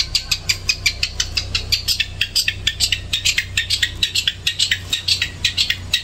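Caged songbird calling in a fast, even run of short sharp notes, about five a second, over a steady low hum.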